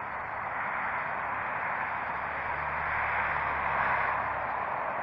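Steady rushing hiss of outdoor night background noise, swelling slightly in the middle and easing again near the end.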